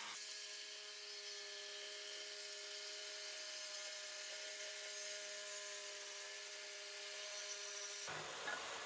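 Corded DeWalt jigsaw running and sawing through a wooden board: a steady motor whine over the rasp of the blade. The sound cuts off abruptly near the end.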